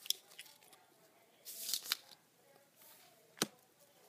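Strips of duct tape being handled and pressed down by hand, with a short rustle of tape peeling about one and a half seconds in and a single sharp tap a little before the end.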